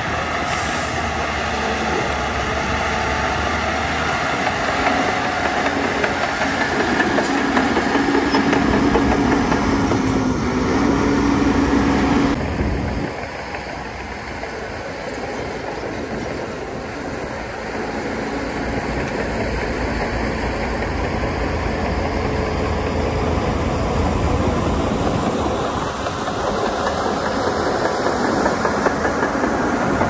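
Crawler bulldozer working: its diesel engine runs steadily while the steel tracks clank and rattle. The sound drops suddenly about twelve seconds in, then gradually builds back.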